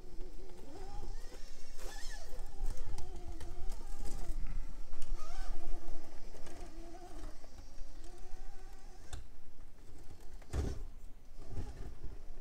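Traxxas TRX-4M RC crawler's small electric motor and geared drivetrain whining as it climbs rock, the pitch rising and falling with the throttle, with scattered clicks of tyres and parts on the rock. A single thump about ten and a half seconds in.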